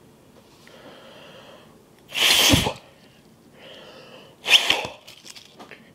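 A person blowing hard into one end of a hard-boiled egg to force the egg out of its shell: a breath in, then a loud blast about two seconds in, then another breath in and a shorter, sharper blast about four and a half seconds in.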